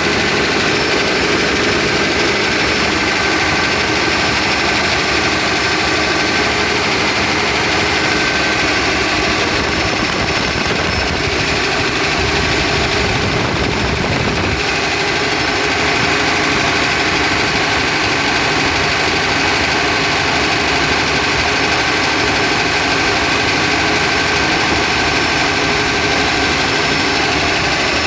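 FPT NEF 6.7-litre six-cylinder turbo diesel engine (NEF67TE8W) running steadily, with a brief heavier low rumble near the middle. The owner hears it as a strange sound coming from the combustion chamber.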